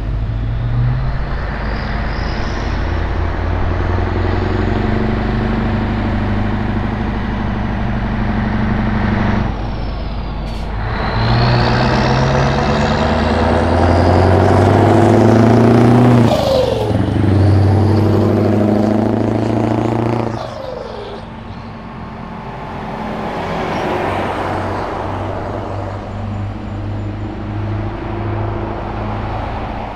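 Scania 143M 500's 14-litre V8 through a straight-pipe exhaust, pulling away and accelerating through the gears as the truck approaches and passes, with short breaks in the engine note at gear changes about ten and twenty seconds in. Loudest as it goes by around the middle, then it drops in pitch and fades as it drives off.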